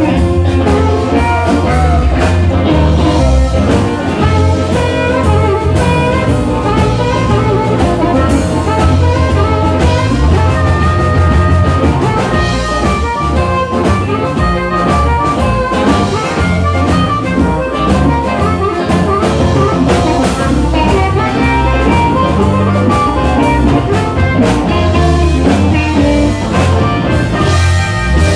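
Live electric blues band playing an instrumental passage: amplified harmonica played into a handheld microphone over electric guitar, electric bass and a drum kit, at a steady loud level.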